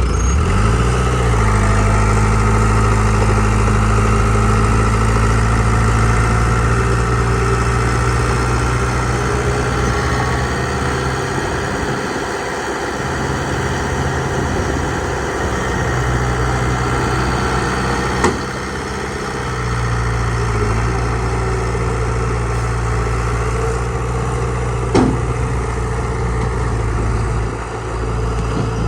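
Heavy diesel engine of earthmoving machinery running steadily, with a couple of sharp knocks partway through.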